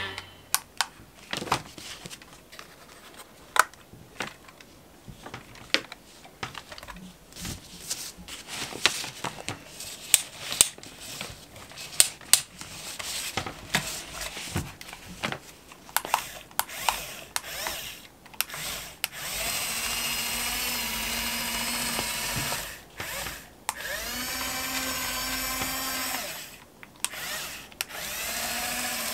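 Sharp plastic clicks and knocks as the toy excavator is handled. About two-thirds in, the small electric motors of a Mofun 1026 1/24-scale RC excavator start whining in three steady runs of a few seconds each, with short gaps between, as it is worked from the remote.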